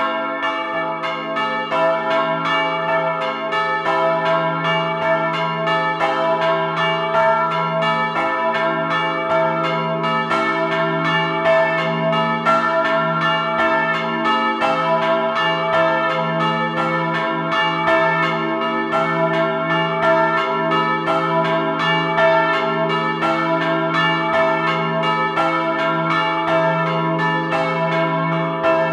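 Peal of three swinging church bells tuned to e', a' and d-flat'' (Feniks Žalec 2003, Feralit Žalec 1970 and Kvirin Lebiš 1948), rung by electric swing motors. The clappers strike over and over in a steady, overlapping pattern above a deep, continuous hum from the largest bell.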